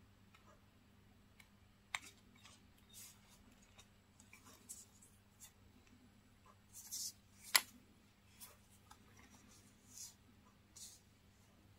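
Small clicks and short scratchy rustles of hands handling a wristwatch's leather strap and metal buckle, with one sharp click a little past the middle.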